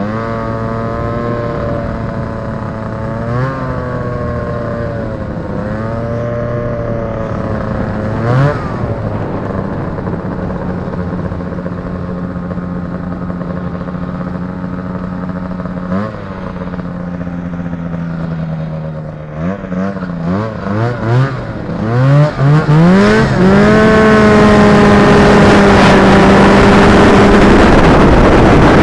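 Indy Trail snowmobile's Rotax 503 two-stroke twin running underway. Its pitch rises and falls with several throttle blips, holds steady for a stretch, then jumps in a quick string of blips and climbs to full throttle, loudest near the end.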